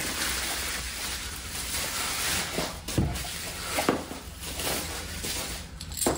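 Rustling and handling of packaging as a boxed set of hydraulic disc brakes is unpacked, with a few light knocks.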